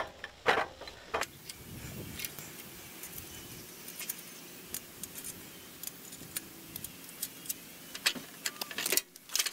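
Scattered light metallic clinks and taps as steel bolts and the tow roller assembly's brackets are fitted to the sawmill's cross bunks by hand, with a few sharper clicks near the end.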